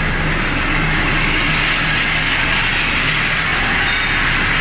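Steady machinery noise of a metal-fabrication shop floor: an even, loud hiss with a low hum underneath.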